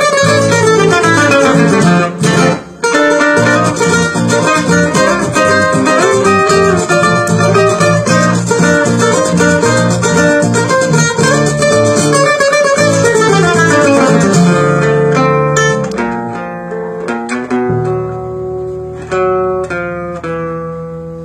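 Solo cutaway acoustic guitar played with the fingers: a fast, busy run of notes, then from about two-thirds through slower single plucked notes over a held bass note that ring out and fade away as the piece closes.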